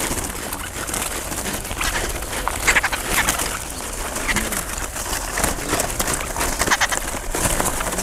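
A crowd of small songbirds chirping and chattering, many short high calls overlapping one another.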